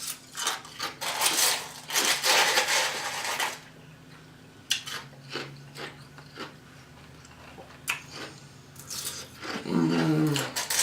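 Ice being chewed close to the microphone: dense crunching for the first three and a half seconds, then scattered single crunches.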